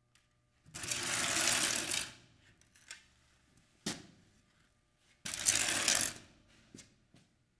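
A slatted wooden crate dragged and scraped across the floor in two rough pushes, each a second or so long, with a sharp knock between them and a few small taps.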